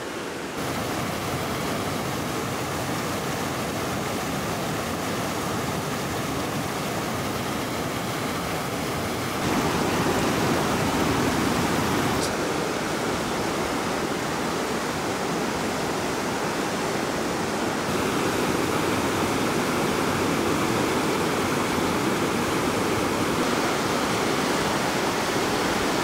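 Fast mountain stream rushing over rocks: a steady, loud rush of white water. Its level steps up and down a few times as the shot changes.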